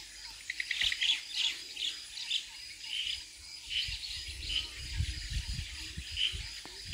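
Birds chirping over and over in short high calls, with a quick rapid trill about half a second in. A few low thuds come in the last couple of seconds.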